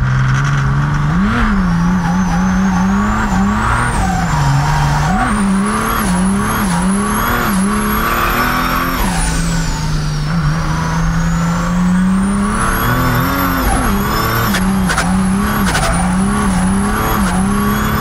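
Mercedes W124 300TD's tuned OM606 straight-six diesel under hard acceleration, its engine note climbing and dropping back again and again through the gears. A high turbo whistle rises as boost builds, falls away steeply about halfway through, then climbs again.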